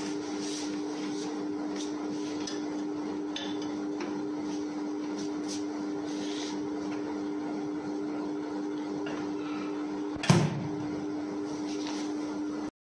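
Countertop oven humming steadily, with light clicks and knocks as the pizza pan is set on its rack. About ten seconds in, the oven lid shuts with a loud thump; near the end the sound cuts off abruptly.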